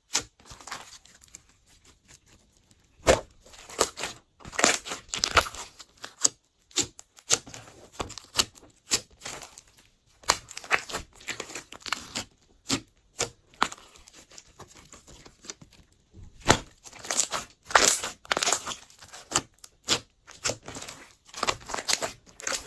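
Glossy slime being squished and stretched by hand: irregular sticky crackles and pops as air pockets burst, coming in bunches with short pauses between.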